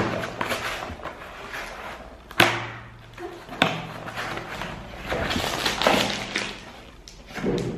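Cardboard product box being opened by hand: a few sharp knocks and taps as the box is handled and its flaps pulled open, then a longer rustle of cardboard and plastic wrap as the bagged plastic chopper is pulled out about five seconds in.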